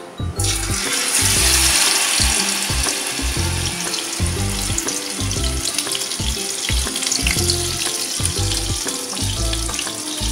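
Batter-coated water lily stems going into hot oil in a kadai. The oil bursts into a sizzle about half a second in and keeps frying with a steady hiss.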